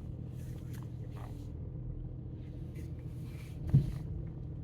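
Car engine running with a steady low hum, heard from inside the cabin, with light rustling and one sharp thump about three-quarters of the way through.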